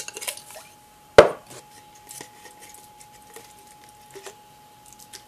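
A glass jar set down on a tabletop with one sharp knock about a second in, followed by light clicks and taps of jars and lids being handled.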